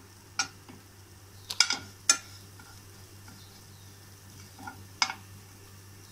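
Steel slotted spatula scraping and knocking against a non-stick frying pan while neem flowers are stirred as they roast: a handful of sharp, irregular scrapes over a faint sizzle.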